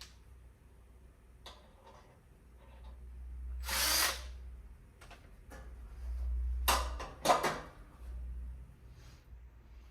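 Screwdriver driving a bolt into a joint of a metal bed frame, with a few short bursts of metal scraping and clatter, the loudest about four seconds in and again about seven seconds in.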